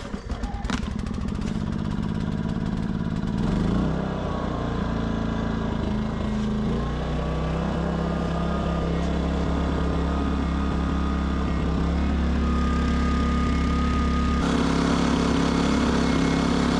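Westinghouse iGen2500 inverter generator's small engine running at idle and surging: its speed shifts up and down several times instead of holding steady. The owner takes this for a fault from a dirty carburetor, a partly blocked idle jet.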